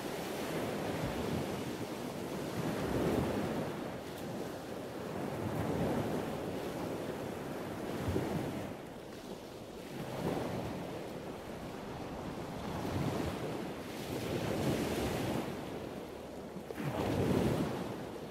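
Wind and waves on open bay water, with wind buffeting the microphone; the noise swells and fades every two seconds or so.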